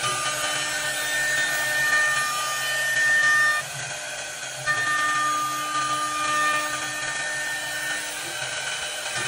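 CNC wood lathe's high-speed spindle router running with a high whine as it cuts into a wooden baluster, over steady machine noise. The whine and cutting drop away briefly about four seconds in, then resume.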